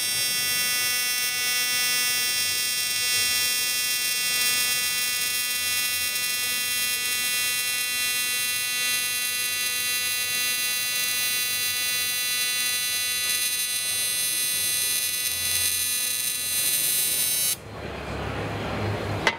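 AC TIG welding arc on aluminum, powered by a Lincoln Electric Aspect 375 inverter AC/DC power source: a steady high-pitched electrical buzz. It cuts off suddenly near the end as the arc is broken.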